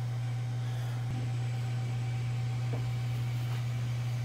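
A steady low hum that holds unchanged throughout, with a faint, thin higher tone above it.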